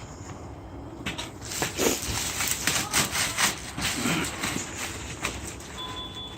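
Irregular knocks and metallic clatter from a metal rolling tool chest being handled while it is checked for dents and bent drawers, with a short electronic beep near the end.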